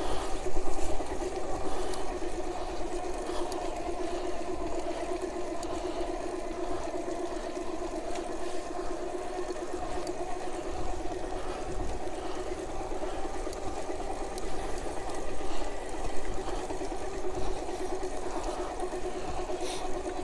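Alba 500-watt electric bike kit motor whining steadily as the bike rides along, with a low rumble underneath.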